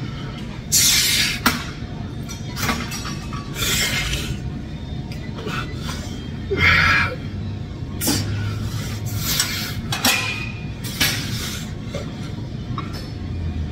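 Hard breathing through a set of alternating dumbbell front raises: short hissing exhales a second or two apart, with a few light metal clinks.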